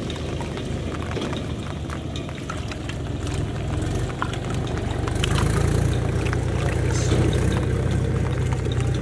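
A steady low hum, like a motor running nearby, growing louder about five seconds in, with small splashes and squelches of a hand working in a muddy-water hole.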